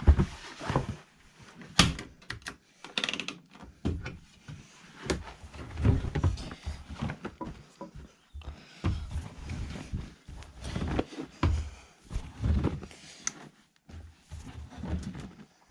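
Irregular clunks, knocks and thuds of washing machine doors and laundry being handled as the finished wash is unloaded.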